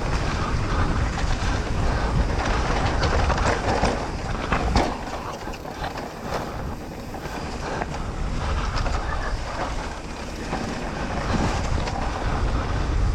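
Electric mountain bike rolling fast down a dirt trail: tyre noise with the chain and frame rattling and knocking over bumps, and wind rumbling on the microphone.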